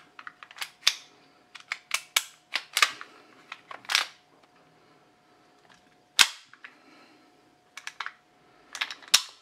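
Series of sharp metallic clicks and snaps from a 1911-style gas airsoft pistol as its slide and hammer are worked by hand, with one loudest sharp snap about six seconds in.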